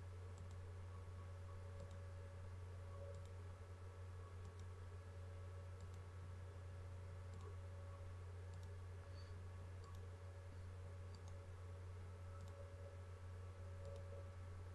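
Faint computer mouse clicks, one about every second and a half, over a steady low electrical hum.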